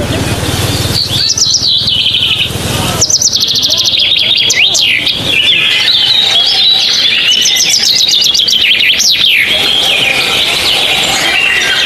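Birds chirping and calling, with rapid trills and quick falling whistles. A rushing noise runs under the calls for the first three seconds.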